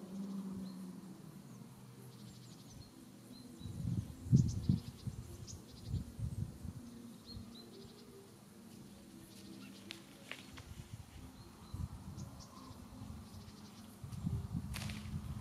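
Outdoor ambience with scattered short, high bird chirps, over a faint background hiss. Low rumbling bursts come in around four to six seconds in and again near the end.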